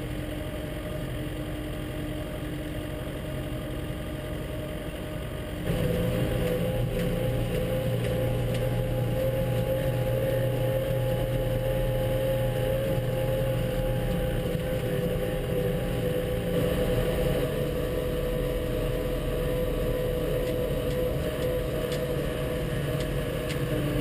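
Case tractor's diesel engine running steadily, heard from inside the cab as it drives with a snow plough blade on the front. About six seconds in the sound jumps louder and a steady whine holds over the engine hum.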